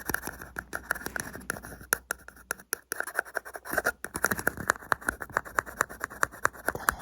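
Ear scraper tool scratching in quick, irregular strokes, several a second, right up against the microphone.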